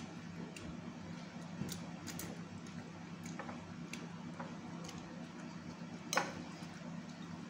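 A metal spoon tapping and scraping against a plate as food is scooped, a few light irregular clicks with the loudest about six seconds in, over a faint steady hum.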